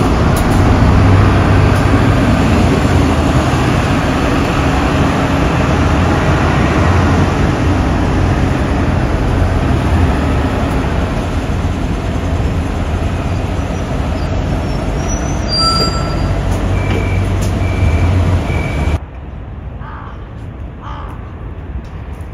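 City bus engines running, a steady low rumble with road traffic. Near the end come three short beeps, then the rumble cuts off suddenly to much quieter ambience.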